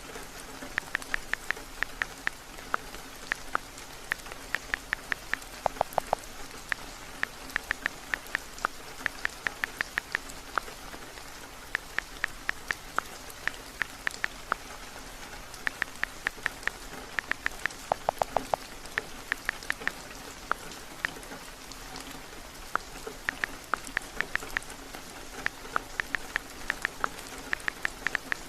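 Steady heavy rain, with a phone's on-screen keyboard clicking in quick runs of taps as someone types, pausing between runs; a couple of the runs have deeper clicks.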